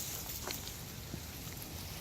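Steady patter of light rain, with a low rumble underneath and two faint ticks, about half a second and just over a second in.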